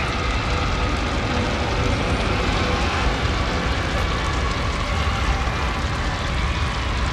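Horror ambience soundscape: a dense, steady rumble with faint drawn-out higher tones wavering above it, like distant wailing.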